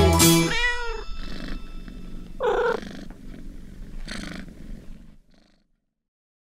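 Domestic cat vocalising: a short rising-and-falling meow just after the music ends, then two or three more cat sounds, the loudest about two and a half seconds in and a last one about four seconds in.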